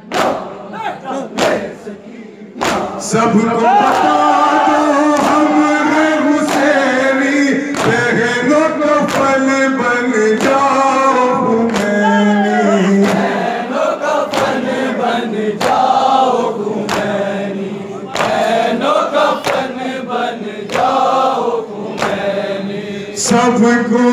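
Men chanting a nauha, a Shia lament, in chorus over a microphone. The voices come in strongly about three seconds in, and sharp slaps of matam chest-beating keep a steady beat of about one a second.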